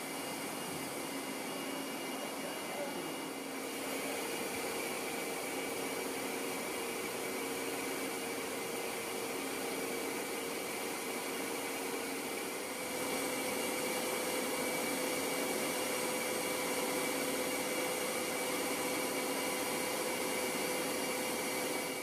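Large CNC milling and boring machine running under power: a steady mechanical hum with a held whine, stepping up in level about four seconds in and again about thirteen seconds in.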